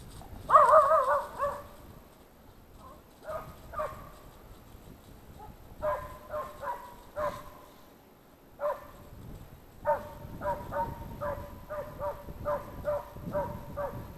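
Hunting hound baying on the trail of a fox. It gives a long wavering bay about half a second in, the loudest call, then scattered barks, and from about ten seconds a steady run of barks, about three a second.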